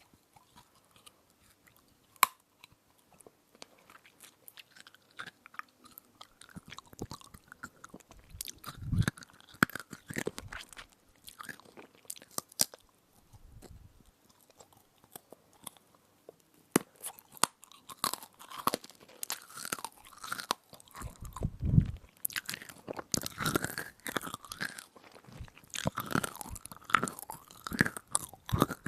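Close-miked chewing of a crunchy edible spoon: crisp bites and crackling crunches with mouth sounds. They come sparsely at first and grow dense and steady over the second half, with a couple of soft low thumps.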